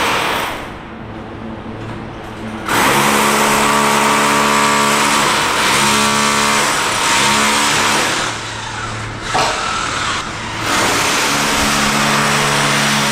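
Electric demolition hammer chipping out walls and tiles, a rapid pounding with a motor drone and harsh hiss, stopping briefly twice between runs.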